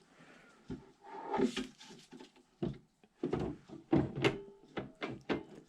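A 60-volt battery pack being slid and pushed into the battery bay of a Kress KG471 snowblower: a series of plastic knocks and clicks with some scraping, the battery seating and latching.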